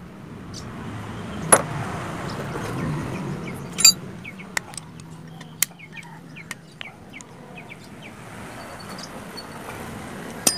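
Hyundai Atoz front brake caliper and pads being handled, giving a handful of sharp metallic clicks and knocks, the loudest about a second and a half in, over a low steady background hum.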